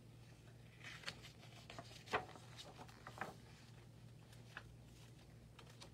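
Paper pages of a picture book being turned and handled: a few faint rustles and soft taps over a low steady hum.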